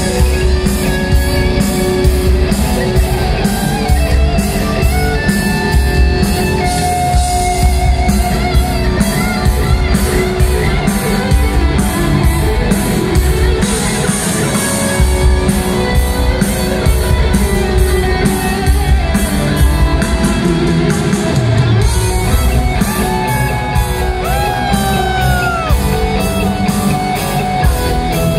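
A thrash metal band playing live at full volume: distorted electric guitars over a driving drum kit, with gliding, bent guitar notes near the end.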